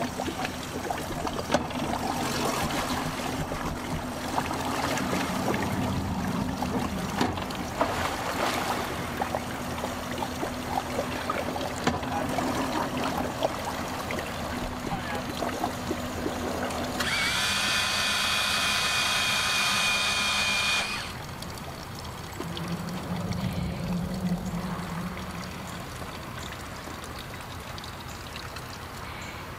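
Outboard motor idling as a bay boat eases in, its steady hum stopping at about 17 seconds in. An electro-hydraulic pump on the boat then whines steadily for about four seconds and cuts off sharply.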